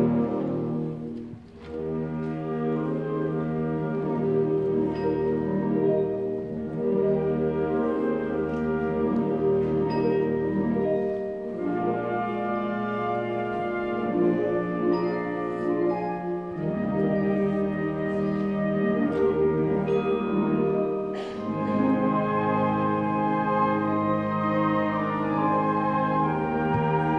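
Wind orchestra playing a Christmas carol arrangement live: brass and woodwinds in sustained chords, heard from the audience seats of a concert hall. The music dips briefly about a second and a half in, and a percussion hit comes about three-quarters of the way through.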